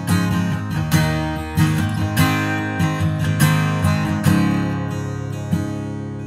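Background music: strummed acoustic guitar, chords struck every half second or so, then a last chord left ringing and fading near the end.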